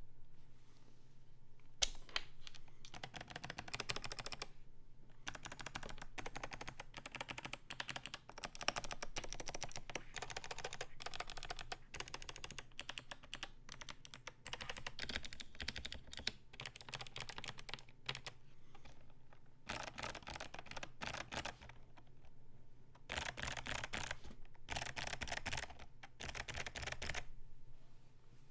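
Typing on a mechanical keyboard with clicky Kailh Box Navy switches, a POM plate and MT3 keycaps: fast runs of sharp, crisp key clicks broken by short pauses.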